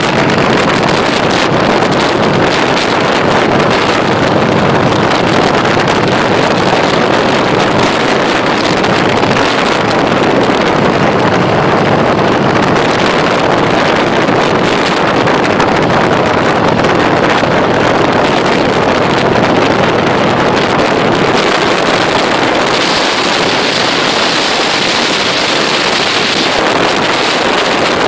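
Harley-Davidson Softail Crossbones V-twin running steadily at cruising speed, heard under heavy wind rush on the microphone from riding. The wind hiss grows brighter for a few seconds near the end.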